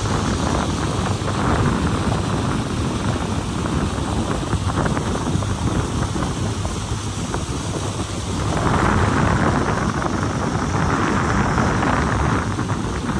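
Wind buffeting the microphone on a moving speed boat, over a steady low drone from the boat's engine. The wind swells louder about eight seconds in and again near the end.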